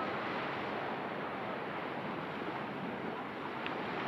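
Steady rushing wash of ocean surf, with a brief high chirp near the end.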